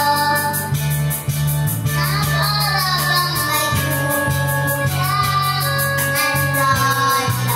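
A young boy singing a Tagalog pop ballad into a karaoke microphone over the song's backing track. Partway through, his voice cracks on a high note.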